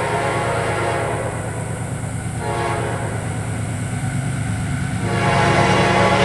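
CSX freight train led by a GE AC6000CW diesel locomotive, its engine and wheels giving a steady low rumble while its air horn sounds: one blast that ends about a second in, a short blast in the middle, and a longer, louder blast from about five seconds in.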